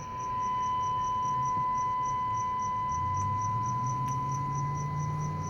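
A steady high-pitched whine comes on suddenly and holds. Over it runs a fast, even chirping of about four to five pulses a second, and a low hum joins about three seconds in.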